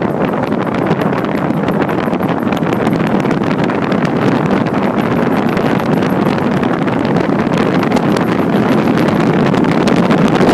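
Moving car with a loud, steady scraping noise from the wheel area, the noise that appeared after a brake job, over wind on the microphone.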